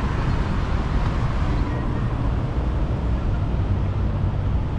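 Steady outdoor background rumble, heaviest in the low end, with a fainter hiss above and no distinct events.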